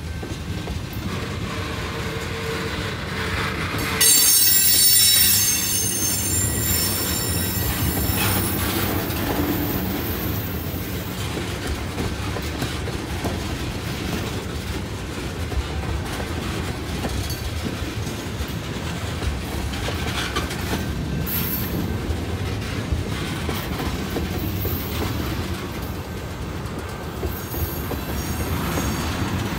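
Freight train rolling past with a steady low rumble of wheels on rail and some clacking over rail joints. About four seconds in, a high-pitched wheel squeal cuts in suddenly and loudly, then fades over several seconds. Fainter squeals return near the end.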